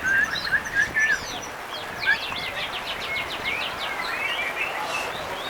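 Several white-rumped shamas singing at once: a tangle of varied whistles and chirps, with a quick run of about ten sharp notes about two seconds in.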